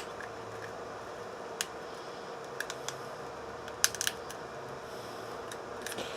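Small sharp clicks and snaps of a pry tool working the cracked screen glass off a smartphone as the glass comes up. They come at uneven intervals, a pair about four seconds in the loudest, over a steady hiss with a faint hum.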